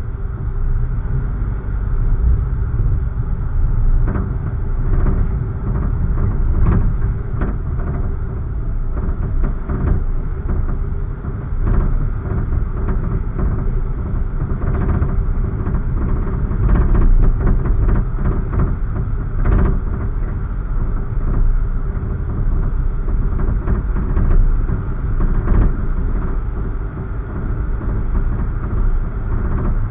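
Car driving slowly on residential streets, heard from inside: a steady low road and engine rumble, with a few short knocks scattered through it.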